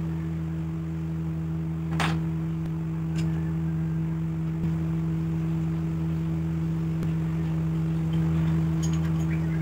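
A steady low hum runs throughout. Over it come a handful of light clicks of a steel Allen key and small bolts being set down on a wooden workbench, the sharpest about two seconds in.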